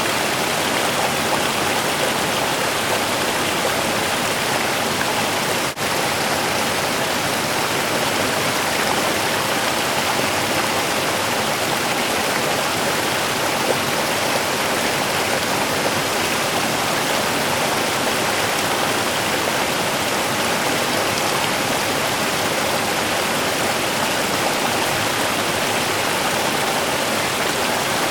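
Small river's running water, a steady, even rushing, with a brief dropout about six seconds in.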